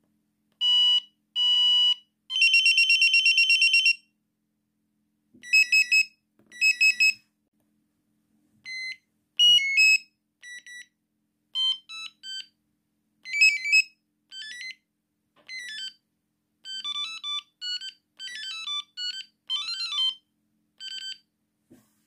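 Samsung SGH-R210S mobile phone's speaker playing its message alert tones one after another as they are previewed: about a dozen short, separate patterns of electronic beeps and fast trills, each a second or less, with brief silences between them.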